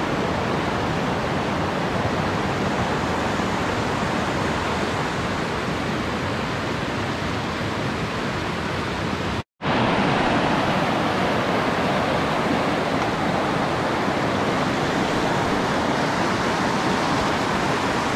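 Rapids of a boulder-strewn mountain stream, a steady rush of white water. The sound cuts out for an instant about halfway through, then resumes unchanged.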